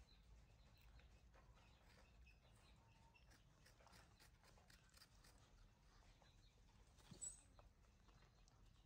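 Near silence: faint outdoor background with scattered small ticks and faint chirps, and one brief faint squeak about seven seconds in.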